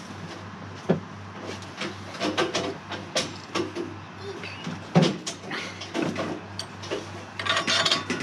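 Irregular knocks and clatters as a Nigerian dwarf goat is handled onto a metal milking stand, its hooves and the steel frame rattling on the mesh platform; the loudest knock comes about five seconds in.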